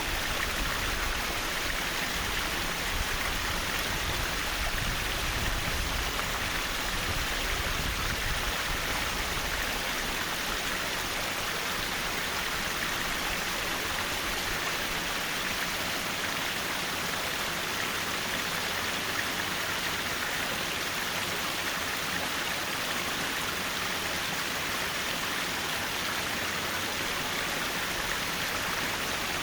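Mountain valley stream flowing over rocks: a steady, even rush of water, with a low rumble underneath for the first nine seconds or so.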